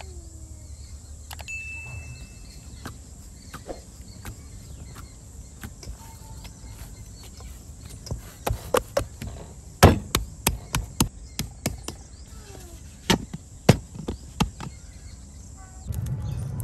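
Hands kneading a stiff dough in a stainless steel bowl: an irregular run of sharp slaps and knocks of dough and hands against the metal bowl, starting about halfway through and stopping a couple of seconds before the end.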